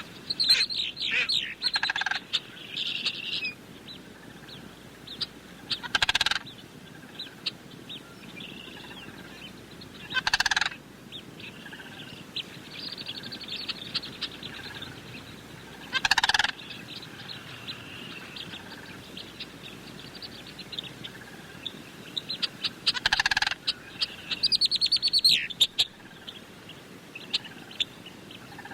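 A flock of sandhill cranes calling, many calls overlapping throughout. Louder single calls stand out about six, ten, sixteen and twenty-three seconds in, with busier bursts of calling near the start and around twenty-five seconds.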